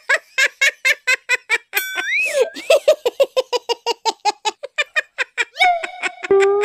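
High-pitched cartoon child's voice laughing on command, a fast, even run of 'ha-ha-ha' about five or six laughs a second, ending in a drawn-out rising squeal.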